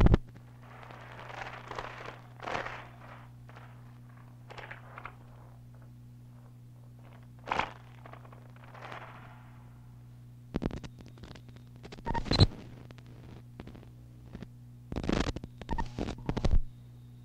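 A quiet passage of experimental noise music: a steady low electrical hum under scattered clicks, crackles and short scraping bursts, which come thicker in the second half.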